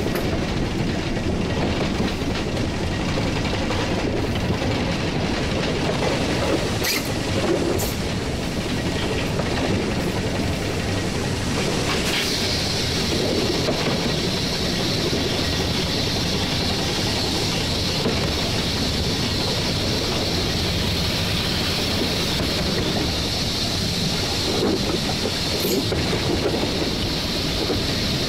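Cab of a 1943 Davenport-built steam locomotive running along the line: the steady rumble and clatter of the train on the track, with a few sharp clicks. About halfway through a steady high hiss joins in.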